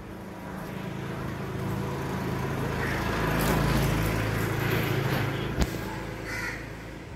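A motor vehicle passes by, its engine hum swelling to a peak about halfway and fading again. A single sharp knock comes about two-thirds of the way in, and a crow caws once near the end.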